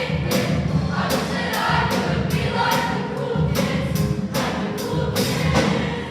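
Choir singing over accompaniment with a steady beat of about two or three strokes a second.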